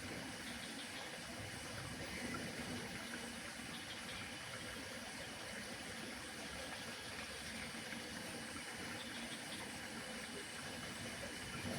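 Steady mountain outdoor ambience: an even hiss of air or distant running water, with a few faint high chirps about a second in, around four seconds and around nine seconds.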